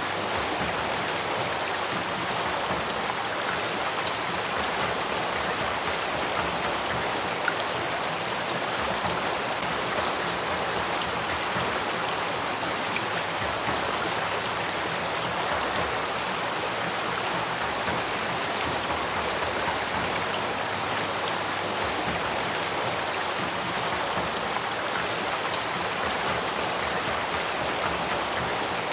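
Spring-fed headwater stream flowing in a steady, even rush of water.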